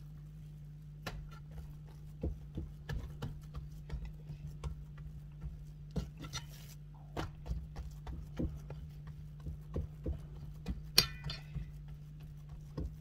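Fingers pressing and patting pizza dough into a cast iron skillet: irregular soft taps and thuds against the pan, with a sharper clink about eleven seconds in. A steady low hum runs underneath.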